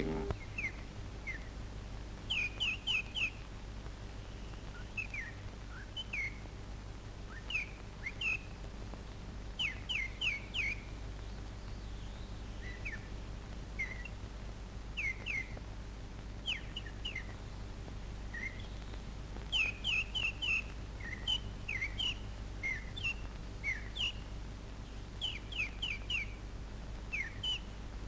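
Nightingale singing: short, clear notes, often in quick runs of three or four, broken by pauses between phrases, over the steady low hum of an old film soundtrack.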